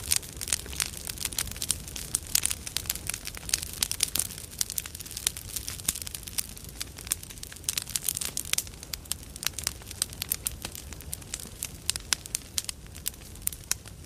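Large campfire burning: burning wood crackling and popping in dense, irregular snaps.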